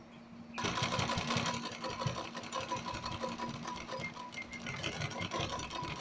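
Sewing machine stitching through trouser fabric, starting about half a second in, with a rapid, even run of needle strokes over a steady hum.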